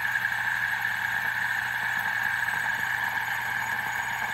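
Oval fidget spinner spinning fast on its bearing, giving a steady whirring hiss with a constant hum beneath.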